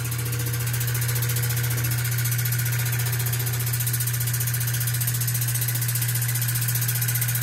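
SYNHOPE mini cordless water flosser running: a steady motor hum under the hiss of its water jet spraying onto a hard surface.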